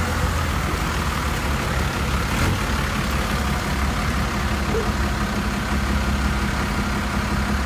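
Engine of a WWII German-style wheeled armoured car running steadily as the vehicle drives past through mud.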